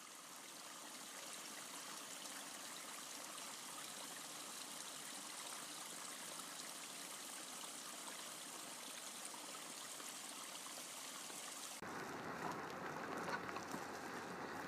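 Steady rushing of a stream's running water. About twelve seconds in it cuts abruptly to a fuller, deeper rush.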